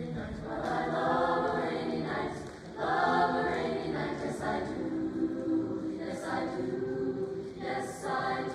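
High school chamber choir of mixed voices singing in harmony.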